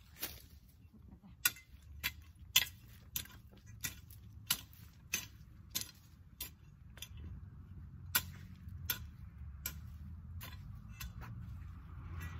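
Garden hoe chopping into soil in a raised vegetable bed: a steady series of sharp strikes, roughly every two-thirds of a second. A low rumble in the background grows louder near the end.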